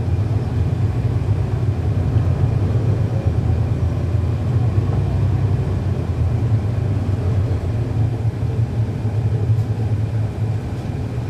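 Diesel drone of a 2011 NABI 40-SFW transit bus's Cummins ISL9 inline-six engine, heard from on board, running steadily as a deep, even rumble.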